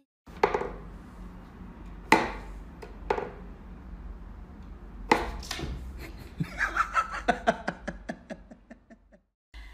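Sharp wooden knocks from a wooden whack-a-mole cat toy as its side pegs are pushed and a cat paws at the holes: four single knocks, then about six seconds in a run of quicker, lighter taps that fade out.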